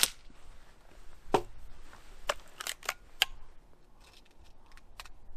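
A Diana RWS Model 36 .177 spring-piston breakbarrel air rifle fires with one sharp crack at the very start. Then a run of metallic clicks and clunks as the barrel is broken open to cock the spring, followed by a few fainter clicks.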